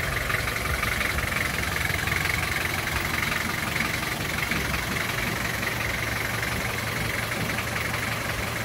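Daihatsu Rocky F75 4x4's diesel engine idling steadily.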